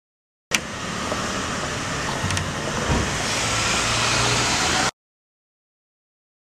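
Steady rushing ambient noise that opens with a sharp click, carries a couple of faint clicks and a soft thump midway, and slowly grows louder before cutting off abruptly; no guitar or singing.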